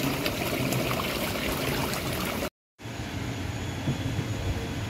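Small waterfall trickling and splashing into a rock koi pond, a steady watery rush. It cuts off abruptly about two and a half seconds in, and after a brief silence a quieter steady hiss follows.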